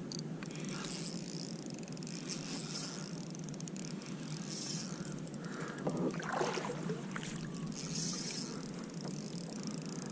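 Kayak moving on calm water: a steady, even rush of water and air noise around the hull, with no distinct knocks or strokes.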